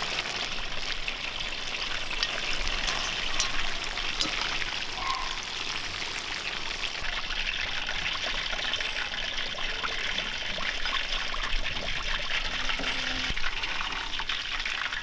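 Chicken drumsticks deep-frying in hot oil in a cast-iron cauldron: a steady, dense sizzle of fine crackles.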